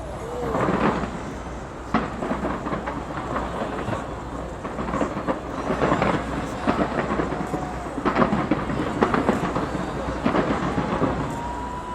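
Aerial fireworks bursting in quick succession: a dense run of bangs and crackles, with heavier clusters of booms about every two seconds.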